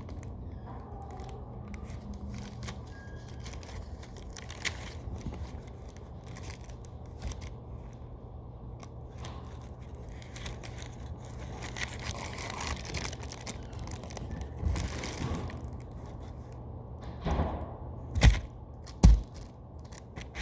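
Foam squishy being cut open and handled: scattered soft scrapes, crinkles and small clicks over a low steady hum, with two loud thumps near the end.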